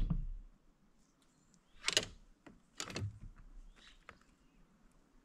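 A thump, then two short clattering scrapes about two and three seconds in, and a few light ticks: a just-caught crappie being handled against the hard plastic of a fishing kayak.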